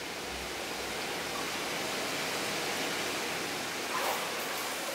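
Steady rushing of water in a plunge pool, with a brief small swell about four seconds in.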